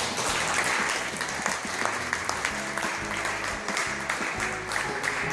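An audience applauding, with music playing underneath.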